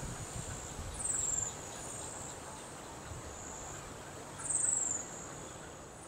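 High-pitched insect calling: a steady thin whine with short descending trills, two louder ones about three and a half seconds apart and fainter ones between.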